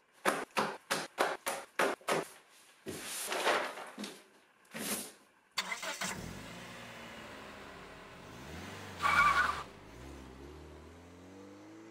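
A paper map crackling and snapping as it is unfolded: a quick run of about seven sharp strokes, then a couple of rustling swishes. Then a car engine starts suddenly and runs, its pitch sliding up and down, with a louder surge near the end.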